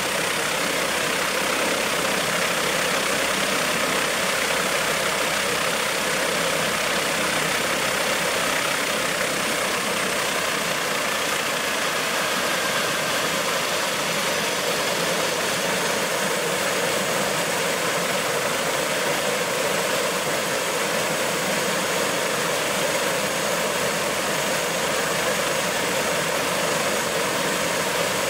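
Airbus H145 D3 helicopter running on the ground, its twin turboshaft engines and five-bladed rotor giving a steady rush with a faint high turbine whine.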